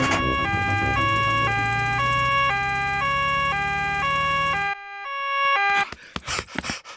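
Cartoon two-tone emergency-vehicle siren, high and low notes alternating about every half second, over a low engine hum. The hum cuts off about four and a half seconds in and the siren stops about a second later, followed by a few short knocks.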